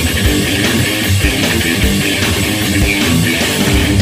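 Background music led by guitars.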